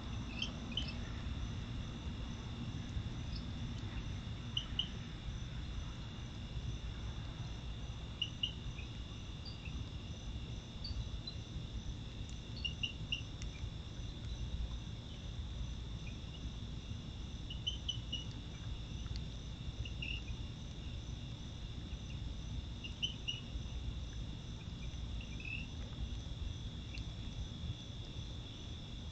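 Night insect chorus, crickets trilling steadily and high, with short chirps repeating every two to three seconds over a low steady hum.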